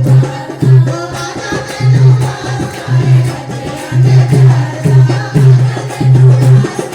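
Folk music with a hand drum keeping a deep, steady beat under a wavering melody.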